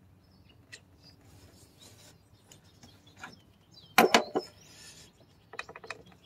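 Small hand wrench clicking and clacking against metal while tightening a MAF sensor screw on the intake in a cramped engine bay. There are a few light clicks, a loud clatter of knocks about four seconds in, and a quick run of clicks near the end.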